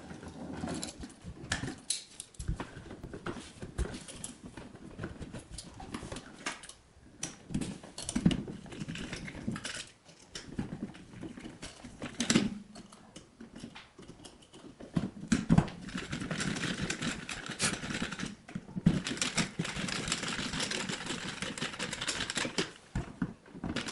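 Handling sounds of an electrical outlet being pushed back into its wall box and screwed in: scattered light clicks, knocks and rubbing of the wires and receptacle. From about two-thirds of the way through comes a steadier scratchy rustle.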